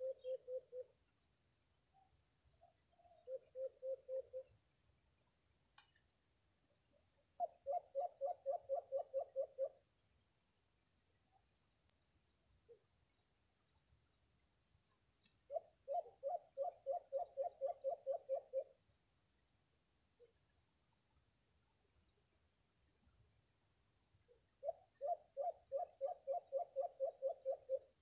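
Steady high-pitched shrilling of insects, with runs of low, rapid coos from a white-eared brown dove over it. The runs come four times, each about five or six notes a second, and the last three last two to three seconds each.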